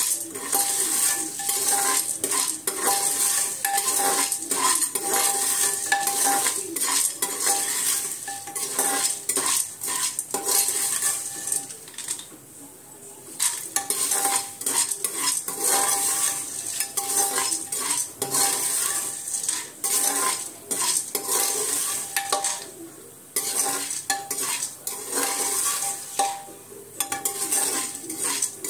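A ladle scraping and clinking against an aluminium pressure-cooker pot as popcorn kernels are stirred in hot oil, with the kernels rattling and a faint sizzle. The stirring pauses briefly about twelve seconds in and again near twenty-three seconds.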